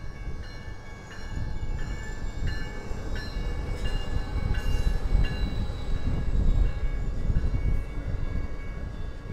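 Amtrak Midwest passenger train passing close by, its diesel locomotive and wheels giving a steady low rumble. Over it a grade crossing bell rings, a high dinging about every 0.7 s.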